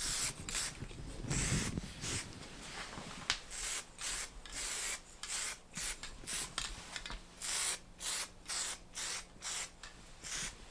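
Aerosol spray paint can sprayed in a long series of short hissing bursts, about two a second, as black paint goes onto CV axle half-shafts.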